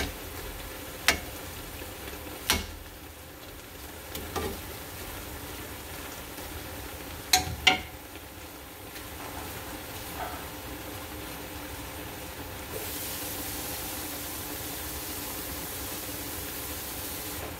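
Pan of soup with noodles and squash simmering with a steady hiss, while a wooden spatula knocks sharply against the pan a few times, the last two in quick succession as it is set down. About two-thirds of the way through, the hiss turns brighter and steadier.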